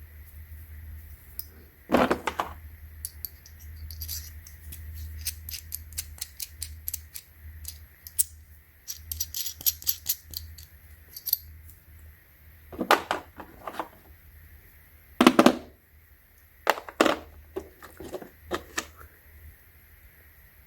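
Metal tools from a tap and die set being handled: light clicking and rattling, with several louder clunks, over a low steady hum.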